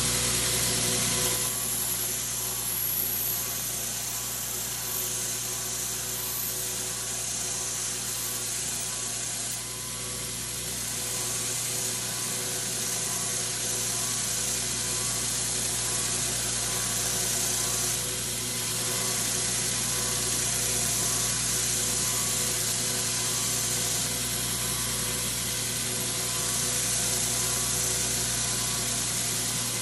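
Belt sander running steadily while a brazed trumpet piston is held against the belt, grinding off the excess legs on its outside. A high grinding hiss swells and fades several times as the piece is pressed on and worked around the belt.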